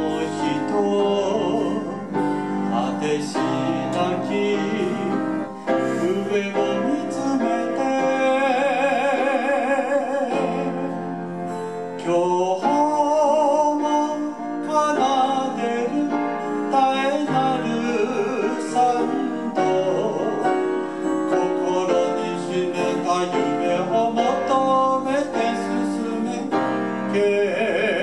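Live band playing a song: three male singers singing into microphones, amplified through a PA, over electric keyboards.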